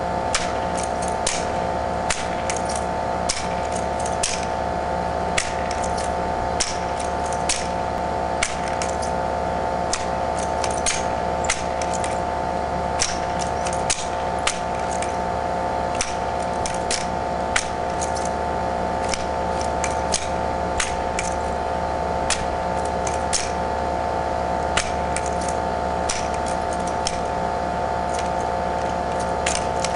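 Sharp clicks and slaps at an irregular pace, about one or two a second, from hands catching and spinning a drill rifle, over a steady multi-tone hum.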